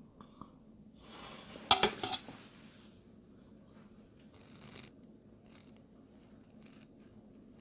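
Eating utensils knocking and clinking against a bowl or pot. A quick cluster of loud knocks comes about two seconds in, followed by scattered fainter clicks.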